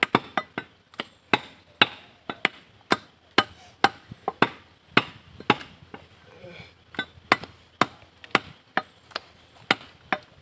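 Butcher's cleaver chopping beef on a wooden log chopping block: sharp chops about two a second in a steady rhythm, with a brief pause a little past the middle.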